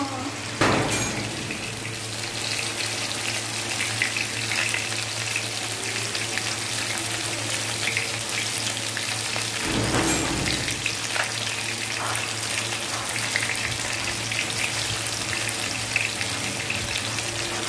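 Pieces of parshe (mullet) fish shallow-frying in hot oil in a steel wok: a steady sizzle with scattered crackling pops over a low steady hum. Two brief knocks, about a second in and again about ten seconds in.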